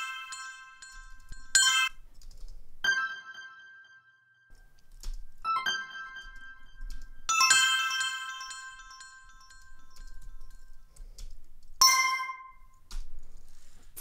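Synthesized bell-tone notification chimes, each a short bright ringing motif that dies away in a reverb tail, sounding about five times with gaps between. A couple of faint clicks fall between the chimes.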